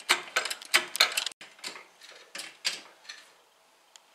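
Hydraulic floor jack being pumped by its handle while it lifts a car: a run of clicks and knocks, about two to three a second, that grow fainter and stop about three seconds in.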